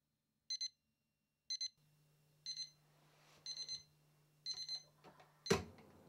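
Digital alarm clock beeping in short bursts of rapid high beeps, about one burst a second, five times. Near the end come a few soft knocks and then one loud clack, and the beeping stops.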